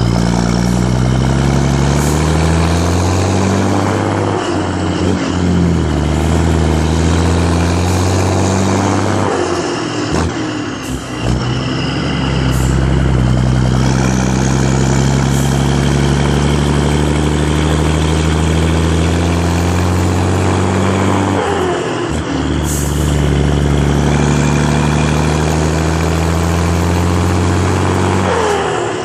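Volvo F12 truck's turbocharged diesel engine pulling under load, heard close to its vertical exhaust stack. The engine note climbs through each gear and drops back three times at gear changes, with a faint turbo whistle rising and falling above it.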